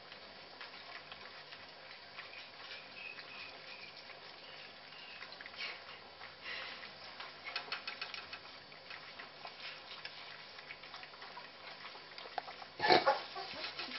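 Puppies eating dry cat food, with scattered small clicks and crunches of kibble, busiest around the middle. A single loud knock about 13 seconds in.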